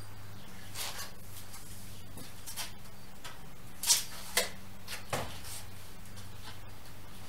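A few scattered knocks and clatters of tools and plywood being handled and set down, the loudest about four seconds in, over a steady low hum.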